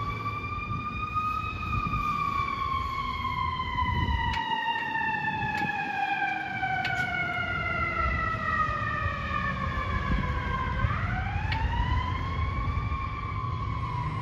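Fire engine siren wailing, with a low rumble underneath. The pitch rises briefly, falls slowly for about nine seconds, then climbs again about eleven seconds in.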